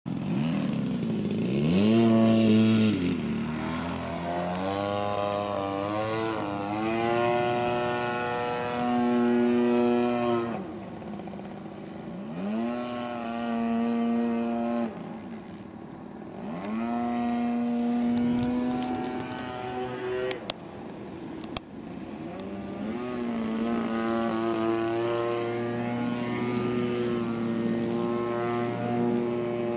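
30cc single-cylinder two-stroke gas engine of an MX2 RC aerobatic plane in flight, revving up and down over and over, its pitch rising and falling. A couple of sharp clicks come a little past the middle.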